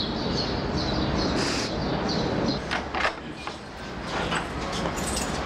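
Steady outdoor background noise with a few clicks and knocks of a house door being opened, around the middle and near the end.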